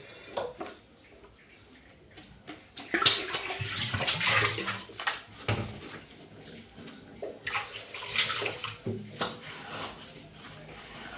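Water splashing and running as a thermos flask is washed, in two louder bouts, about three seconds in and again around eight seconds, with a few light knocks.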